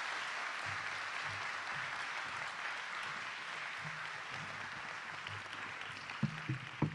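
Audience applauding steadily, easing off slightly toward the end, with a few short low thumps near the end.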